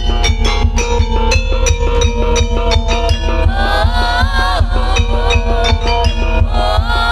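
Live Javanese gamelan music for a Barongan dance: quick, steady drum strokes over held metallophone tones. A woman's sung line slides in about three and a half seconds in and comes back near the end.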